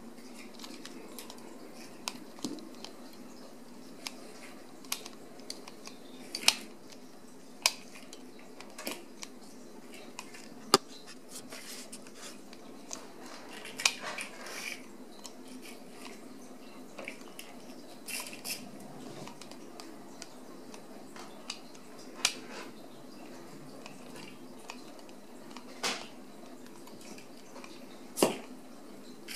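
Ragdoll kittens eating from a dish on a tile floor. Sharp clicks and clinks come every second or two, some louder, with short scuffles, over a steady low hum.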